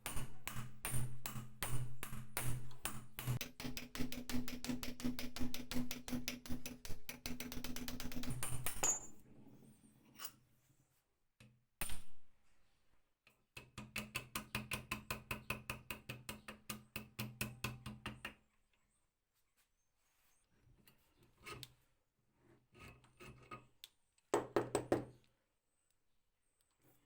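Old two-speed hand drill's gears being cranked, ticking in quick repeated clicks that speed up as it turns faster, then stop; a second run of cranking follows after a single knock.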